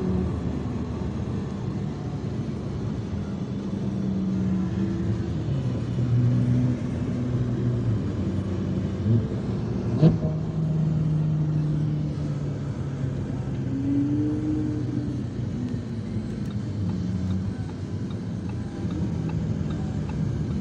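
Lamborghini Huracán STO's V10 engine and tyre noise heard from inside the cabin while cruising on track, the engine tone shifting up and down in pitch. A single sharp click about halfway through.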